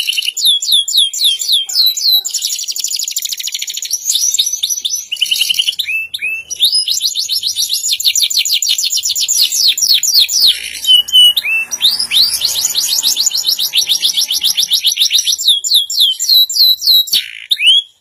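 Domestic canary singing a long song made of rapid trills, fast runs of repeated high falling notes, with two short breaks partway through; the song stops abruptly just before the end.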